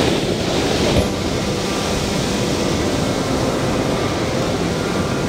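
Ocean surf breaking and washing up a sandy beach, a steady rushing noise, with one short click about a second in.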